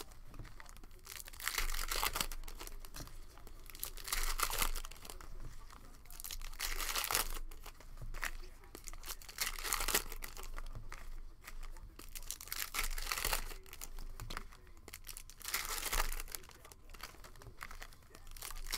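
Foil trading-card pack wrappers crinkling and tearing as Panini Optic basketball cello packs are opened by hand, the cards slid out between. The crinkling comes in spells every two to three seconds.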